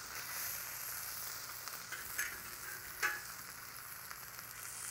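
A tilapia fillet sizzling in vegetable oil in a Disc-It disc cooker, a steady frying hiss. A couple of brief clicks of the metal spatula against the pan come about two and three seconds in.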